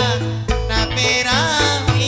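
Live East Javanese jula-juli music: gamelan-style percussion over deep sustained low notes, with a wavering melody line above.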